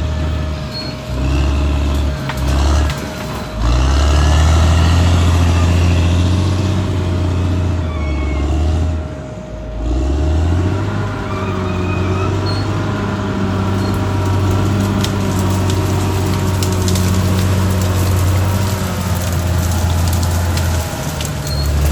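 Caterpillar D6R XL bulldozer's diesel engine running steadily at working load. Its note dips briefly near the start and again about ten seconds in, with short high squeaks and clicks over it.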